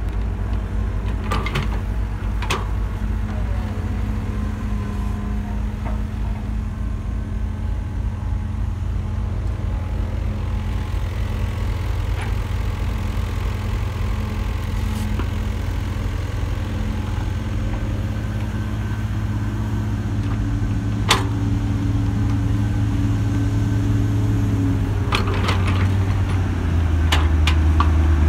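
Diesel engines of a Hamm single-drum road roller and a loaded dump truck running steadily with a deep, low drone, with a few sharp clicks and knocks. The drone grows louder near the end as the dump truck comes close.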